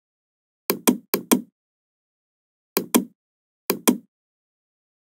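Computer mouse button clicking, sharp clicks in quick pairs about a fifth of a second apart, four pairs with dead silence between.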